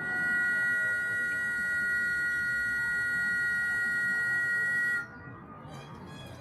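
A long, steady whistle blast sounding two pitches at once, held for about five seconds and then cut off sharply.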